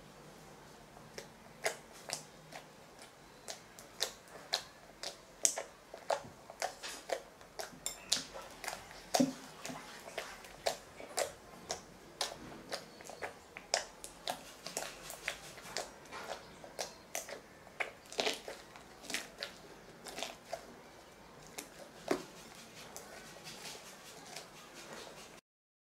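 Jiggly water slime (clear glue activated with baking soda and lens solution) being squeezed and poked by hand in a glass bowl: irregular wet clicks and pops, a few a second.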